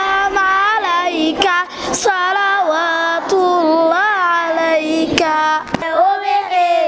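Children singing a melody into a microphone in long held notes that glide up and down, with short breaks between phrases.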